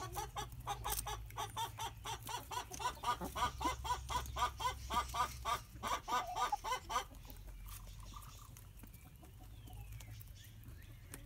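Backyard hens, Light Brahmas and Easter Eggers, clucking in a quick run of short notes, about three a second, as they feed on weeds. The clucking stops about seven seconds in and it goes much quieter.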